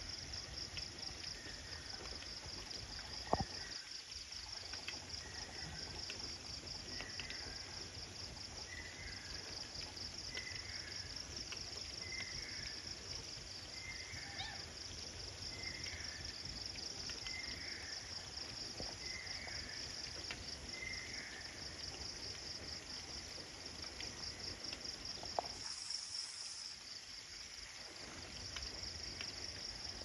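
Insect chorus of crickets trilling, a steady high pulsing trill, with a short call repeated about once a second through the first two-thirds. Two sharp clicks, one about three seconds in and one near the end.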